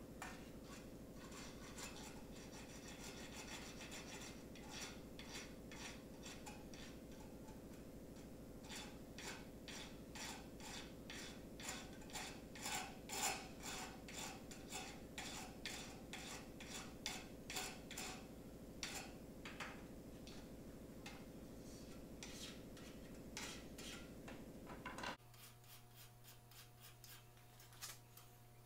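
Hand file rasping across a small 4140 steel wedge in repeated even push strokes as its taper is trued up, over a steady low hum. The filing stops suddenly near the end.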